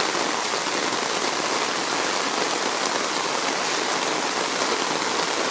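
Heavy rain falling steadily, an even hiss of drops on the ground and water.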